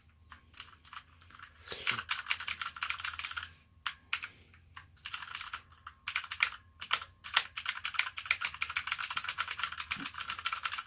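Typing on an APOINT TUF mechanical keyboard with blue (clicky) switches. Scattered key clicks give way to bursts of typing with short gaps, becoming fast, continuous typing over the last few seconds.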